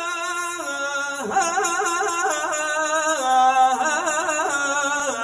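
A male munshid (nasheed singer) singing solo. Long held notes step between pitches and break into quick wavering melismatic turns. No instrument is heard.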